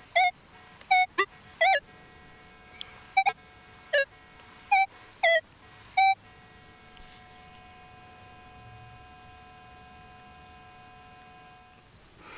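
Minelab CTX 3030 metal detector sounding target tones: a run of short beeps, some sliding up or down in pitch, then one steady tone held for about six seconds before it stops.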